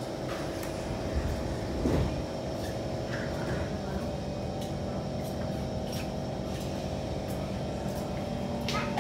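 A sliding door on a Kawasaki C151 MRT train shuts with a single thud about two seconds in. Around it the car hums steadily, with faint clicks.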